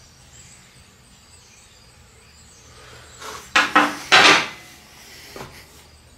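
Steel hydraulic line set down on a steel welding table: a quick cluster of metal clanks and clatter a little past halfway through, then one lighter knock.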